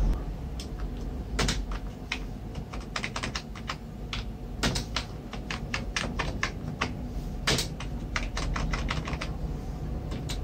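Sharp plastic clicks of a computer mouse being clicked while playing Solitaire, scattered singly and in quick bursts of several a second, over a steady low hum.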